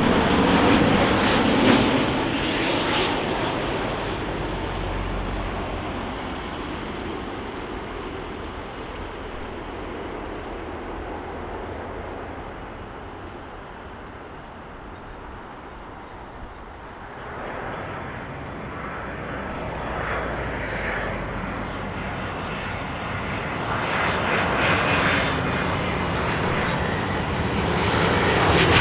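Jet airliner engines, loud at first and fading away, then after a quieter stretch a second jet airliner's engines growing louder toward the end.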